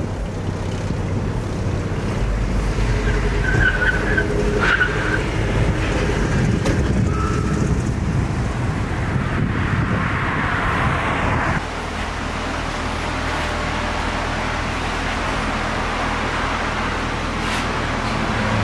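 Road traffic: cars driving past on a multi-lane street, a steady rumble of engines and tyres that swells and then drops off suddenly about two thirds of the way through.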